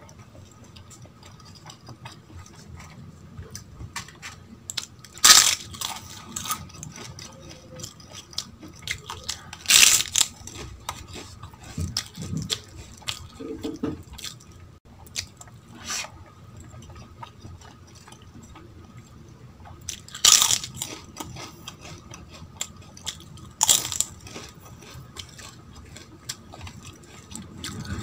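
Close-miked eating with the hands: chewing and wet smacking of dal and rice, broken by four loud crunching bites of something crisp, about 5, 10, 20 and 24 seconds in.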